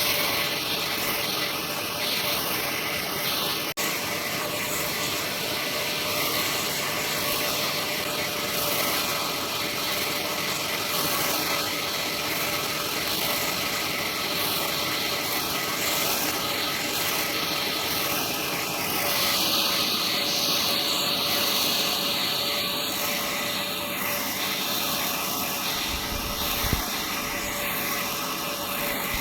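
Horizontal band sawmill running steadily, cutting through a hard sirish log with a continuous mechanical hum and rasp.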